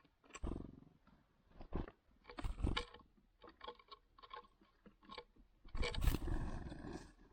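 Great tits at a seed-filled platform feeder: short scattered bursts of tapping and scrabbling on the seed tray, then a loud flutter of wings close to the microphone about six seconds in as a bird lands.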